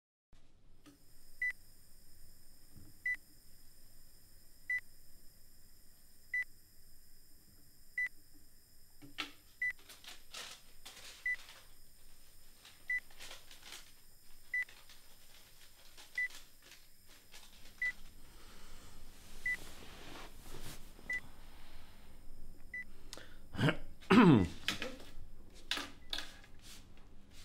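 Hospital heart monitor beeping, one short high beep about every 1.6 seconds, in step with the patient's heartbeat. Scattered clicks and rustles join in after about nine seconds, and a louder sliding sound with a falling pitch comes near the end.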